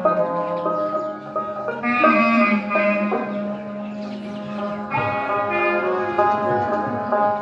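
Instrumental music: held melodic notes over a sustained low note, the tune shifting about two seconds in and again about five seconds in.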